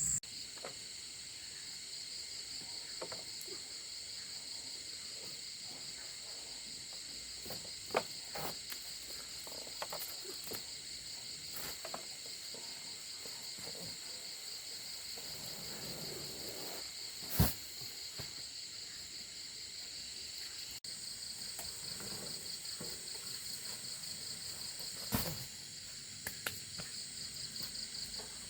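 Insects chirping steadily in a high, rapidly pulsing drone, with a few sharp clicks scattered through it.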